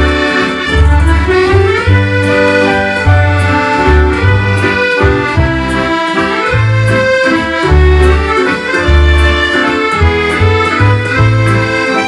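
A Scottish dance band playing a waltz: two piano accordions carry the melody over keyboard and drum kit, with low bass notes pulsing on the beat.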